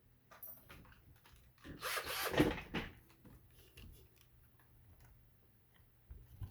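Hands handling a picked Kwikset 660 lock and its wooden practice board: scattered small clicks and knocks, with a longer rubbing, scraping stretch about two seconds in.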